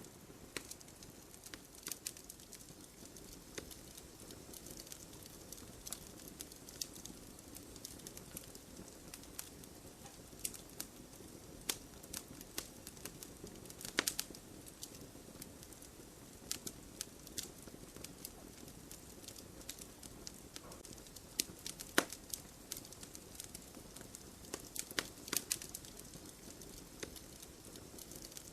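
Wood fire burning with a low steady rush and irregular crackles and pops of burning logs, a few louder snaps about 14 and 22 seconds in.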